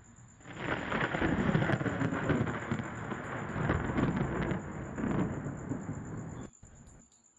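Thunderstorm: heavy rain with rolling thunder that swells several times, starting about half a second in and cutting off abruptly near the end.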